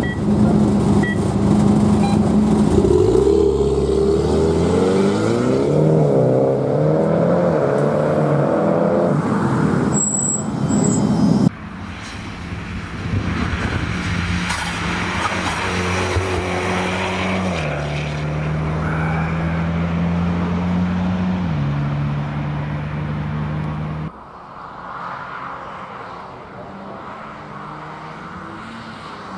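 Mitsubishi Lancer Evo X race car's engine pulling away hard, the revs climbing in repeated rising sweeps through the gears. It is then heard running at high revs through corners, with a drop in pitch at each gear change, and quieter and further off near the end.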